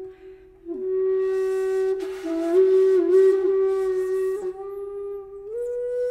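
Background music: a solo flute playing slow, held notes that step from one pitch to another, with breathy air noise. There is a short break between phrases just after the start.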